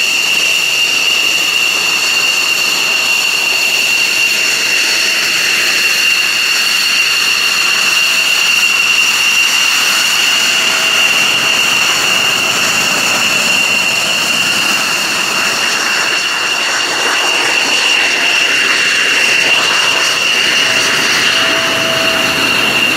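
General Dynamics F-16 Fighting Falcon's turbofan engine running at taxi power as the jet rolls along the apron. It makes a steady high-pitched whine over a rushing hiss.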